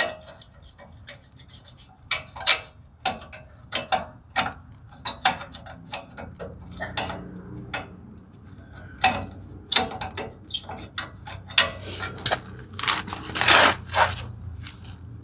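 Metal parking brake hardware clicking and scraping as it is handled: the shoe's hold-down pin and retaining spring clip being worked loose. Irregular sharp clicks throughout, with a longer scrape near the end.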